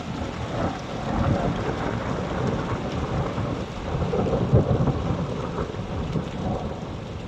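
A long, loud peal of close thunder rumbling over steady rain. It swells to its loudest a little past the middle and fades near the end.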